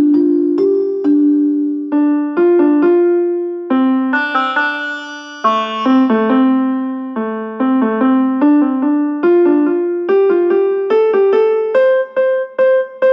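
Ringtone tune: a simple, bouncy melody of quick, sharply struck notes, ending on a long held note near the end.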